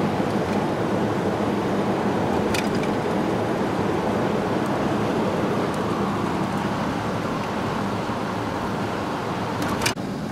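Steady road noise inside a moving vehicle's cabin at highway speed: a rush of tyres and wind over a low engine hum. A short click about two and a half seconds in, and a brief dip in the sound near the end.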